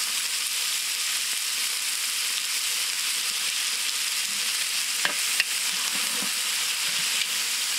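Hot oil sizzling steadily in a large metal cooking pot as fresh coriander, mint and green chillies fry with whole spices. About five seconds in, a flat metal spatula stirs the mix, scraping and knocking against the pot a few times.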